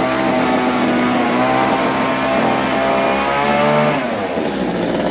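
Two-stroke chainsaw engine running at high revs, its pitch wavering as the throttle is worked, then winding down in the last second.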